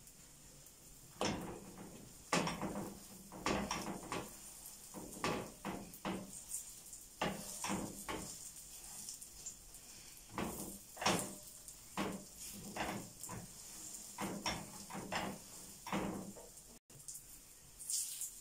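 A slotted spatula knocking and scraping repeatedly on a nonstick frying pan as stuffed bread loaves are pressed down, over a faint steady sizzle of frying.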